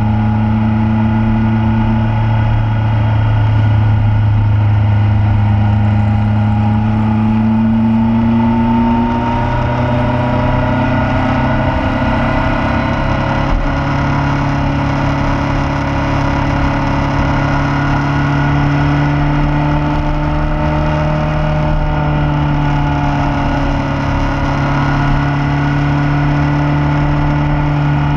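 Motorcycle engine running steadily under way; its note rises a little about a third of the way in and then holds.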